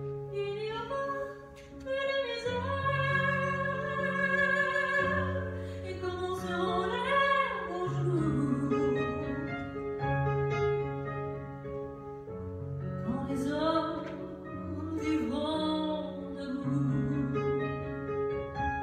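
A woman singing a slow song while accompanying herself on a digital stage piano, long held bass notes changing every second or two beneath her voice, which wavers on its held notes.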